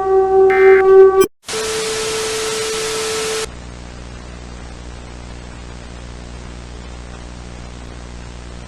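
An electronic alert siren tone cuts off about a second in. After a brief gap comes a loud burst of static with a steady tone under it for about two seconds, then fainter steady static hiss with a low hum.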